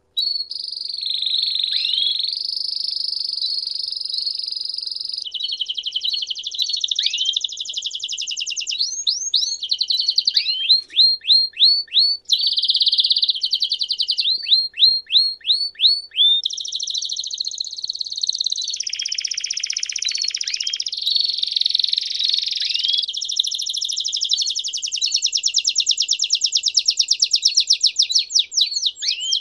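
A domestic canary singing one long unbroken song: a string of fast, high-pitched trills, each held for a second or two before switching to another, with runs of quick rising chirps.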